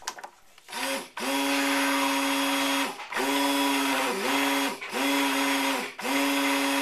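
Handheld stick (immersion) blender running in a pot of cold process soap batter, pulsed on and off about six times, each pulse spinning up and winding down. It is blending freshly added fragrance oil into the oils and lye water to bring the batter to emulsion.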